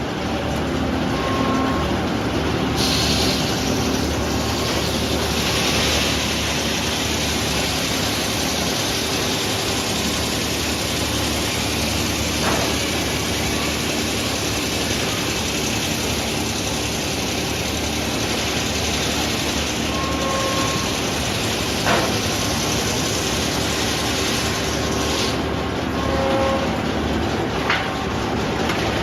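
Sawmill running steadily with its blade cutting through red oak: a hiss of sawing rises over the machine's drone about three seconds in and drops away near the end. A few sharp knocks and brief squeals come on top of it.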